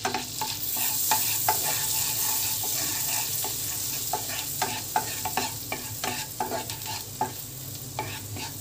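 Finely chopped garlic sizzling in foaming melted butter in a nonstick frying pan. A wooden spatula stirs it, scraping and tapping against the pan bottom many times over the steady sizzle.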